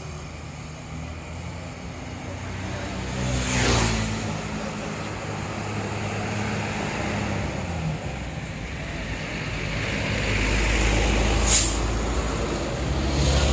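Large buses' engines running at low speed, with a short air-brake hiss about 4 s in and a sharper one near 11.5 s; a deeper engine rumble builds over the last few seconds as a bus comes close.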